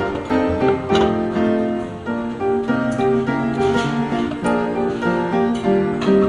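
Background music: an acoustic guitar playing plucked notes over a steady accompaniment.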